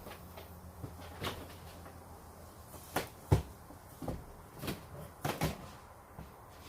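Items being handled and set down: a series of short knocks and clunks, about seven in all, the loudest a little over three seconds in.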